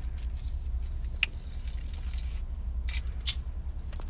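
Paper napkin rustling and scraping as it is rubbed over a face, in short irregular bursts. Under it runs the steady low hum of a car cabin.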